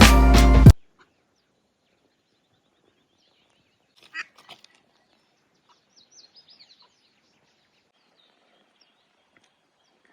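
Background music that cuts off suddenly within the first second, then near silence broken by a brief faint click about four seconds in and a few faint high bird chirps around six seconds in.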